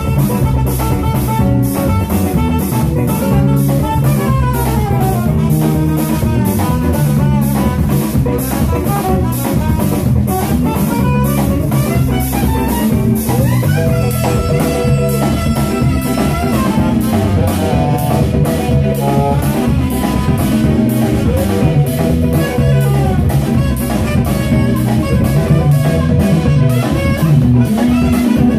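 Live instrumental band playing: a Mapex drum kit keeps a steady beat under electric bass, electric guitar and saxophone lines.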